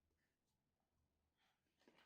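Near silence: room tone, with a few faint soft knocks or rustles near the end.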